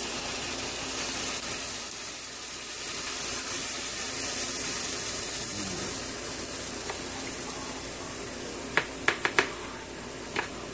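Pancake batter sizzling steadily in hot oil in a skillet as it is poured in. Near the end come a quick run of four sharp clicks and then one more.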